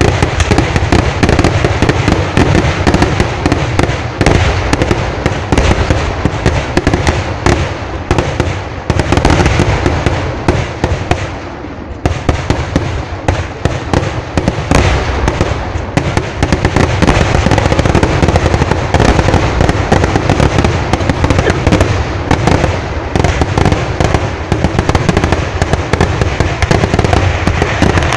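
A fireworks barrage: a dense, continuous run of loud explosions, cracks and bangs following close on one another. The barrage eases briefly about twelve seconds in, then comes back at full strength.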